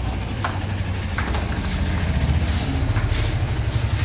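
A steady low mechanical rumble, like a motor or large burner running, with a few faint clicks and knocks over it.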